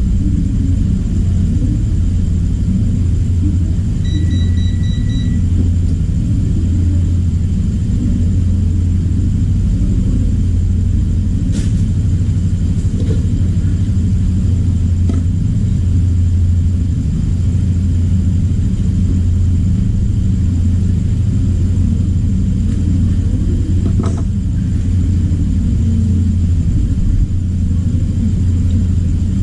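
Steady low hum and rumble, with a short high electronic beep about four seconds in and a couple of faint clicks.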